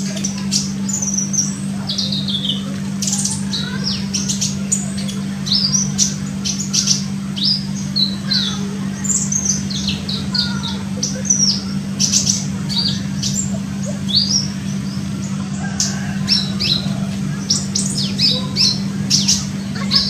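Olive-backed sunbird calling: a rapid, continuous run of short, high, sharp chirps, many sweeping downward in pitch. A steady low hum runs underneath.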